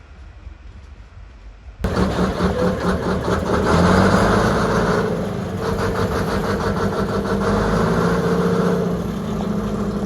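Diesel locomotive engine starting about two seconds in, then running at idle, with a pulsing beat at first that settles into a steady run.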